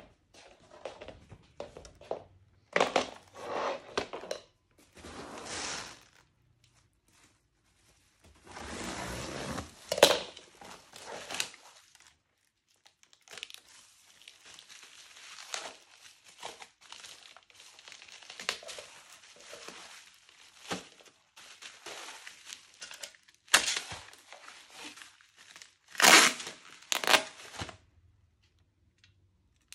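Plastic packaging crinkling and tearing in irregular bursts as it is handled, with a few light knocks.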